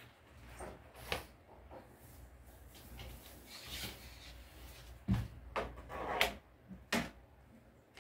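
Floor squeegee with a cleaning cloth scraping along the floor and knocking against a wooden wardrobe: a knock about a second in, rubbing, then a cluster of sharper knocks between about five and seven seconds in.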